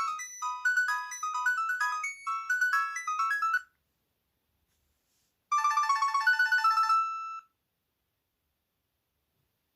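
Lobster 700TV (HTC Monet) mobile phone playing its ringtones one after another: a quick, bright melodic tune that cuts off about three and a half seconds in, then after a two-second gap a second, faster trilling tune lasting about two seconds.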